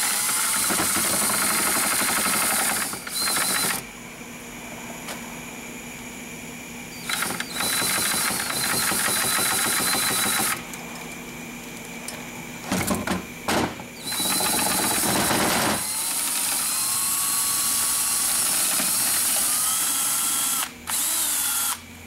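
Cordless drill spinning a frayed steel cable inside the carbon-clogged EGR ports of an intake manifold, scouring them clean. It runs in several bursts of a few seconds with a steady high whine, stopping and starting between them.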